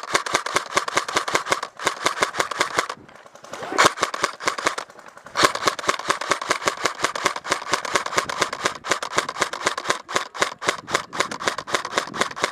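Airsoft gun firing on full auto in rapid bursts of evenly spaced shots: one of about three seconds, a short one near four seconds, then a long unbroken burst of about seven seconds.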